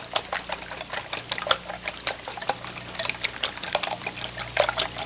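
Wire whisk beating eight raw eggs in a bowl, its wires clicking against the bowl about four or five times a second over the wet slosh of the egg. The eggs are beaten only lightly, just enough to mix yolk and white.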